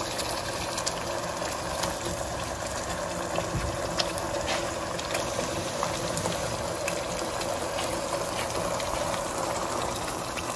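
Water poured from a bowl into a pan of simmering meatball curry, the thick sauce sizzling steadily, with a few light clicks scattered through.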